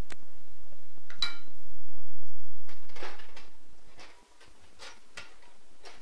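Plastic spatula scraping and knocking against a stainless steel mixing bowl of flour, with a ringing metallic clink about a second in, a scrape around the middle and a few more knocks as the spatula is set down in another steel bowl.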